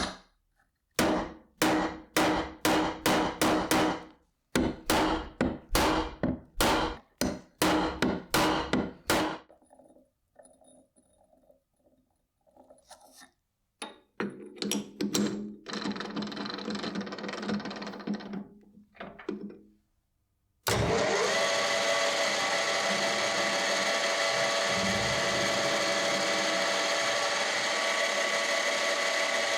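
Hand-tool work with quick, regular strokes, about three a second, in two runs, then a power tool switched on about two-thirds of the way in and running steadily.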